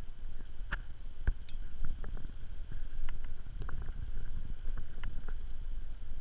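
Wind buffeting an unshielded microphone in uneven gusts, with scattered light clicks and knocks over it.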